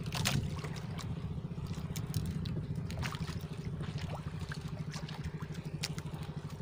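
Small outrigger boat's engine running at idle, a steady fast low putter, with water trickling and lapping and a few light scrapes and clicks as a nylon hand line is hauled in over the side.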